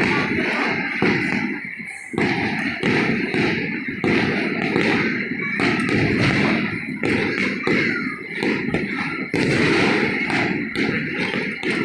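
Aerial fireworks going off in quick succession: a dense run of booms and bangs, several a second, overlapping one another.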